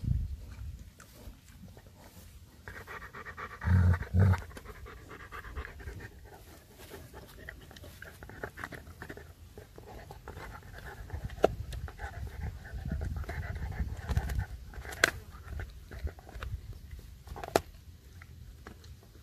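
German Shepherd gnawing a meaty bone, with a few sharp cracks from the bone and panting breath. Two heavy low thumps come about four seconds in.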